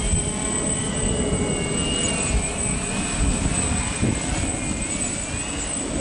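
Radio-controlled electric quadcopter's motors and propellers whining in flight, the pitch wavering up and down as the throttle changes.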